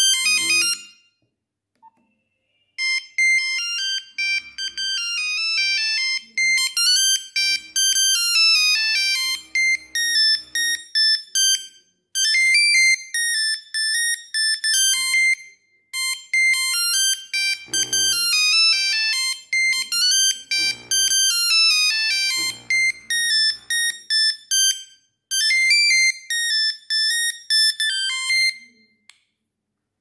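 Nokia 3310 monophonic ringtones playing one after another: quick beeping single-note melodies, each cut off after a few seconds and followed by a short pause before the next starts. A few soft knocks come through in between.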